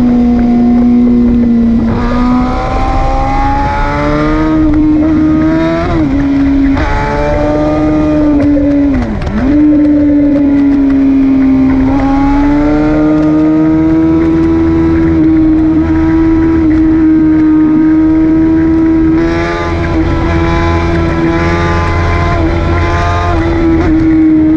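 Tuned 2018 Yamaha R6's inline-four engine pulling at high, steady revs under way, with wind rushing over the microphone. The revs dip briefly about six and nine seconds in and climb straight back.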